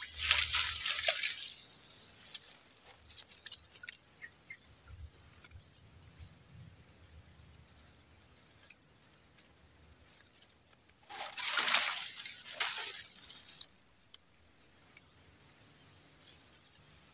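A steady high-pitched insect drone, broken twice by short bursts of rustling as a snagged pole-fishing line is tugged at: once at the start and again about eleven seconds in.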